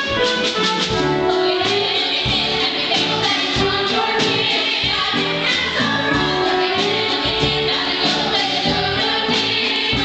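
Cast singing together in chorus, accompanied by a pit band with a steady beat of low drum hits.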